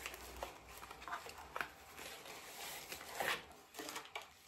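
Scattered light clicks and rustling of plastic charging-station parts and packaging being handled.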